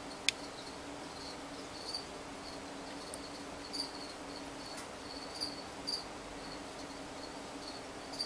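Irregular short, high chirps, like an insect such as a cricket, over a steady low hum. There is a single sharp click about a third of a second in.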